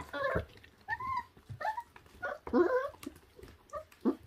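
Very young puppies whimpering and whining as they feed on raw meat. There are several short, high, rising-and-falling cries, mixed with small clicks.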